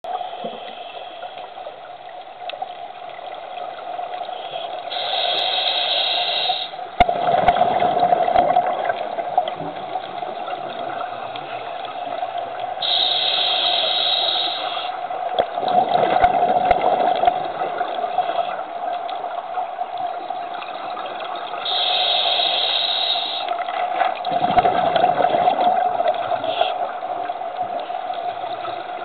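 Scuba regulator breathing heard underwater: three breaths, each a hiss on the inhale followed by a gurgling burst of exhaust bubbles, about every eight or nine seconds. A steady hum runs underneath.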